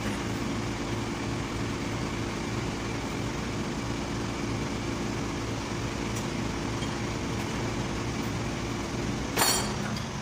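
Steady mechanical hum, like an engine or machine running. About nine seconds in, a single sharp metallic clink rings out briefly.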